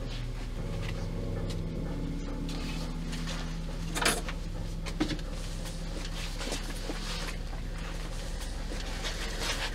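A low steady drone with a few scattered knocks, the loudest about four seconds in and a sharper one a second later.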